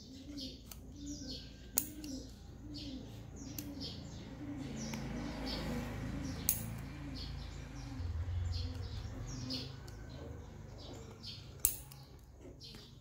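Scissors snipping stiff cardboard, three sharp snips spread through the stretch, over birds chirping and a low bird call repeated steadily, a little under twice a second.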